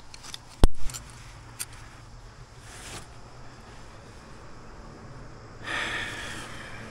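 A single sharp knock less than a second in, then the climber's breathing: a faint breath midway and a hard, hissing exhale about six seconds in as he works his hands up the crack.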